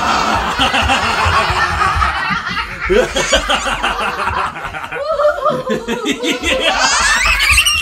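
A toddler girl laughing in long runs of quick repeated bursts, climbing higher in pitch near the end.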